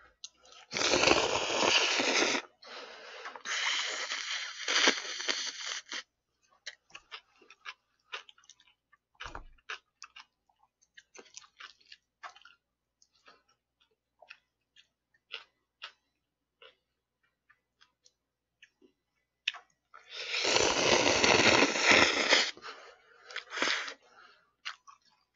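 A person slurping bibim naengmyeon noodles in long noisy draws, loudest about a second in and again near the end, with soft wet chewing and lip-smacking clicks in between.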